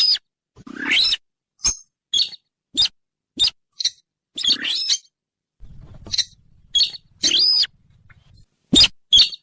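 Recorded call of the sintar, a bird lured by its call: a run of short, separate call notes, roughly two a second, several of them arching up and falling back in pitch, with total silence between them.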